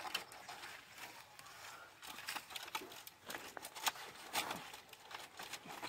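Dry leaves crackling, rustling and tearing as they are pulled off a large spiky-leaved plant, with irregular sharp snaps.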